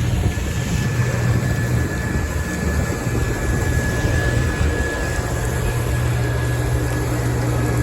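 Steady low rumble of a running vehicle, with a thin high whine held through most of it.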